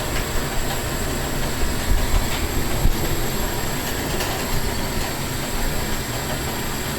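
A Delta Elite glassworking hand torch burning with its gas turned up high for a powerful flame: a steady rushing of the flame, with a thin high whine alongside.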